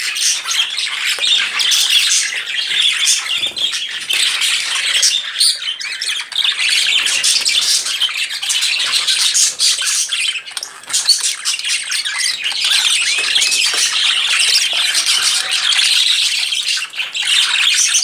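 A flock of caged budgerigars chattering and chirping continuously, with many rapid, overlapping high calls.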